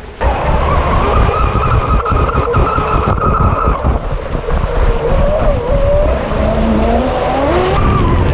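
Onboard sound of a radio-controlled electric speedboat running at speed: a motor's whine over the loud rush of water and wind. The whine holds steady for the first few seconds, then wavers and climbs in pitch, with a sudden change just before the end.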